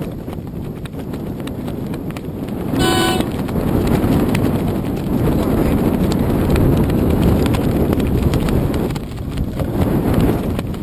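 Wind and water noise rumbling on an outdoor camera's microphone, growing louder about three seconds in. About three seconds in comes one short, high-pitched horn toot, lasting about half a second.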